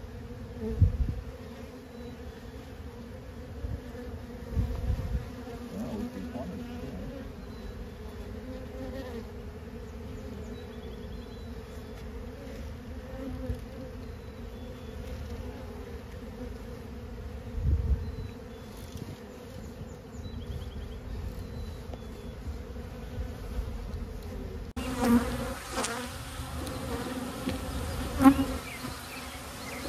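Honeybees buzzing in a steady hum on an open brood frame. A few low bumps sound on the microphone, and sharper knocks come in the last few seconds.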